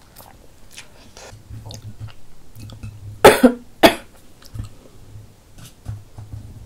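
A woman coughs twice in quick succession a little past halfway, with soft mouth and chewing clicks around it while she eats.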